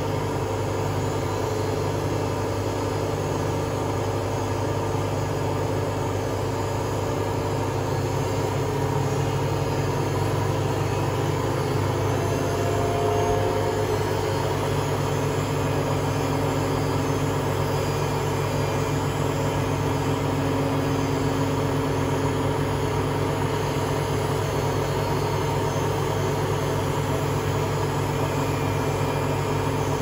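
Hotpoint Aquarius WMA32 washing machine on a test spin, its drum spinning at speed. The motor and drum give a steady low hum with a higher steady tone over it.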